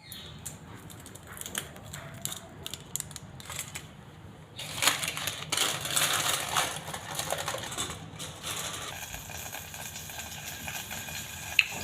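Cooking sounds while making Maggi instant noodles: light clicking and crinkling for the first four or five seconds, then a steady hiss from about five seconds in.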